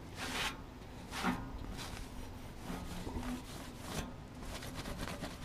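Cloth wiping and rubbing a dimpled metal camper step, in several short swishes.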